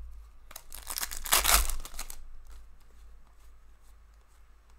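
Wrapper of a hockey trading card pack torn open by hand: a crinkly rip lasting about a second and a half, followed by a few faint clicks of the cards being handled.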